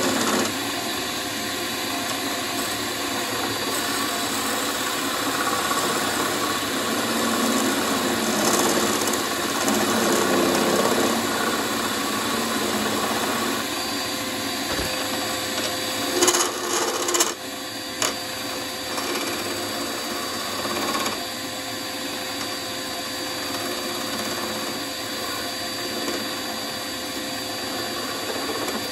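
Wood lathe running with a steady motor tone while a turning tool cuts a spinning wooden bowl blank. The cutting noise swells and eases, with a few short, sharp scraping bursts a little past halfway.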